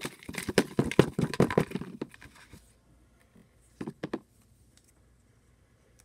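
Folded paper slips rustling and crackling as a hand stirs them in a bowl and picks one out, then two short crinkles about four seconds in as the chosen slip is unfolded.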